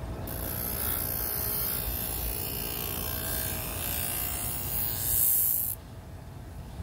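Thin knife edge being sharpened against a spinning, wax-loaded buffing wheel on an electric motor: a loud hiss of the steel on the wheel over the motor's steady hum. The hiss swells about five seconds in and then cuts off abruptly, leaving only the hum.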